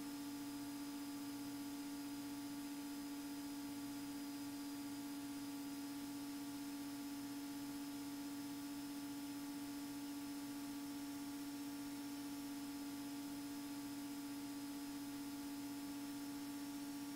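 Steady low hum over a faint hiss, unchanged throughout: the in-flight cabin drone of a Beechcraft Bonanza A36 on final approach, heard through the cockpit audio.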